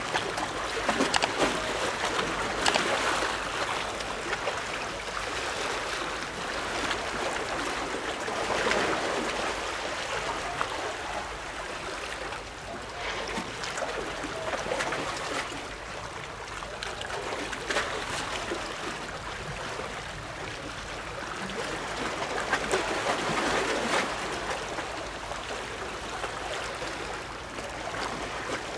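Water washing and lapping at the shoreline, swelling and easing every few seconds, with a few sharp clicks near the start.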